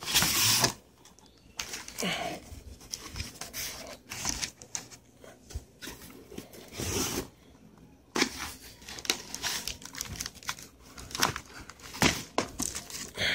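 Cardboard packaging and a plastic-shrink-wrapped tray of firework shell canisters being handled: irregular rustling and crinkling of the wrap, with light knocks and clicks.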